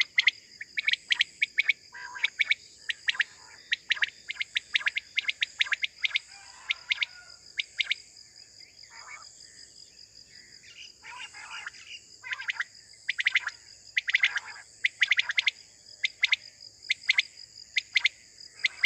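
Caged decoy quails calling over and over, short sharp notes in quick groups with a brief lull around the middle, over a steady high hiss of crickets.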